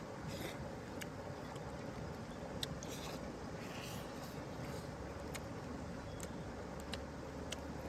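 Steady rush of flowing river water, with scattered sharp clicks and a few brief hisses over it.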